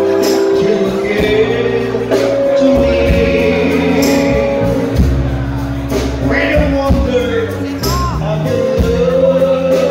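A man singing a song into a microphone through a PA, backed by a live band.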